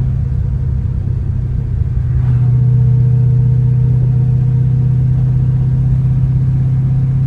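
Ford Fox-body car's engine running at a steady cruise, heard from inside the cabin as a constant low drone. It grows a little louder about two seconds in.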